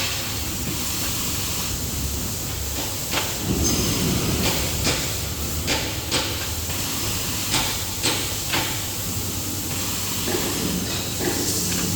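Band saw paper towel roll cutter running: a steady mechanical hiss with sharp clicks and knocks at uneven intervals, most of them in the middle of the stretch.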